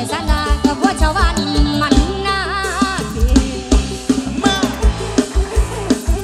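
Mor lam sing band music: a drum kit keeps a steady beat under bass and a melody line that slides and bends in pitch.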